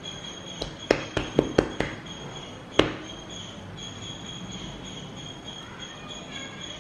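Hands slapping and patting a ball of cookie dough flat on a countertop: a quick run of about six slaps in the first two seconds, then one louder slap near three seconds. A steady high-pitched whine runs underneath.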